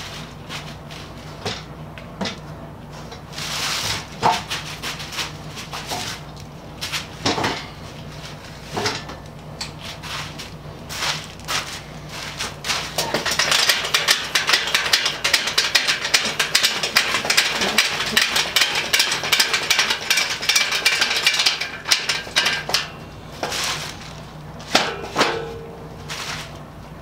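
Knocks and clatter of a folding Workmate-style workbench being handled, then from about 13 s to 22 s a dense run of fast clicking and rattling while its wooden top jaws are opened apart, with a few more knocks near the end.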